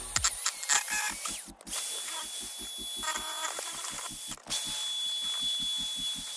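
Electric drill spinning a paddle mixer in a cup of epoxy resin, played sped up: a steady high whine over a fast, even clatter, broken by two brief gaps.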